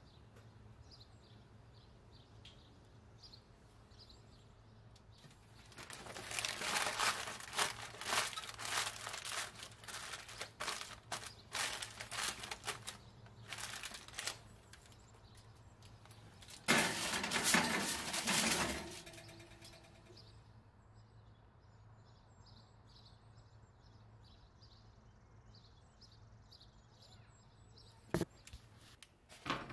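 Aluminium foil crinkling and crackling as it is pressed and tucked down over a baking dish, in one long stretch of several seconds and a second short burst a few seconds later. A single sharp knock near the end.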